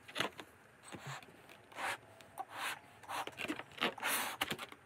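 Breaths blown by mouth into a large latex balloon to inflate it: several short breathy rushes, a second or so apart.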